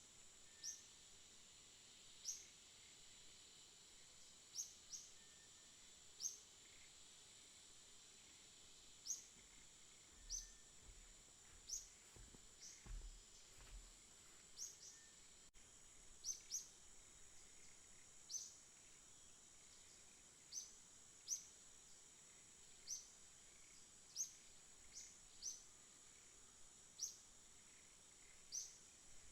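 Small aviary birds giving short, high, upward-sweeping chirps, one roughly every second, over a steady high hiss.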